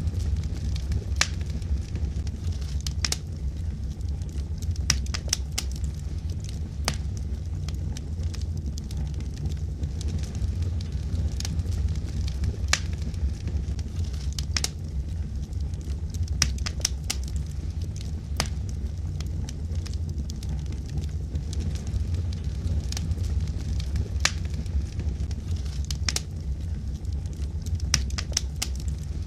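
Wood logs burning in a fireplace: a steady low rumble of flame under sharp, irregular crackles and pops, several every few seconds.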